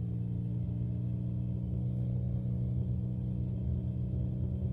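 Single-engine piston airplane's propeller engine running steadily at power, heard from inside the cockpit, with an even low drone.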